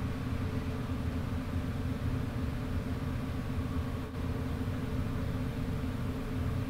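A steady low machine hum, like a motor or fan running, with a faint hiss over it.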